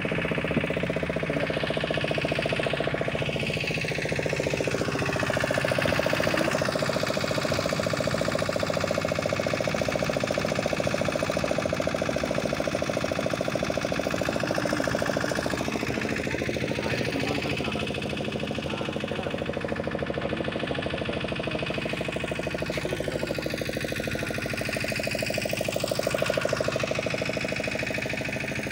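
Motorboat engine running steadily under way, a continuous even drone with no change in speed.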